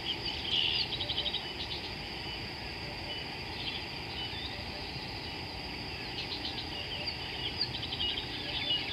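Wild bush soundscape: a steady, high-pitched insect drone, with birds chirping and giving short, rapid trills near the start and again in the second half.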